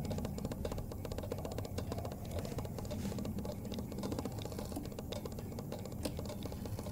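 Fast run of small clicks and rattles over a low rumble as the minute hand of a pendulum chiming wall clock is pushed round by hand.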